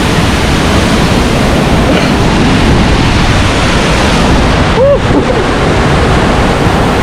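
Waterfall's rushing water: a loud, steady wash of noise. About five seconds in, a short pitched sound, like a brief call, rises and falls over it.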